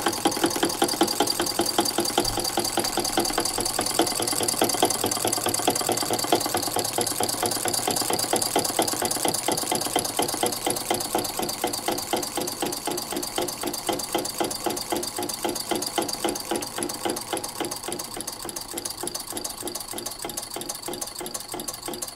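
A two-cylinder solenoid engine running: a rapid, even mechanical clatter of its solenoids pulling in turn and its cam-operated micro switches clicking. It grows gradually quieter.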